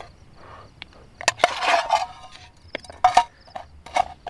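Eating from a metal camping bowl: a spoon clicks and scrapes against the bowl, a breath is blown on a hot spoonful, and there are short chewing and mouth sounds.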